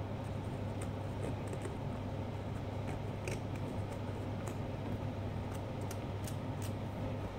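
Steady low hum in the room, with faint scattered clicks and scrapes of a small carving knife cutting into pumpkin rind.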